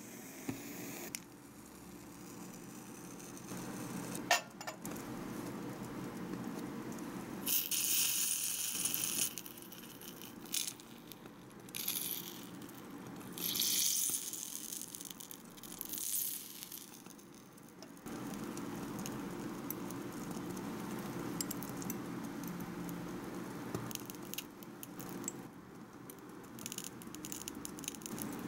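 Small metal tools and tweezers clicking, tapping and scraping against tiny ceramic dishes and cups, with a few short hissy bursts of scraping or stirring, over a low steady hum.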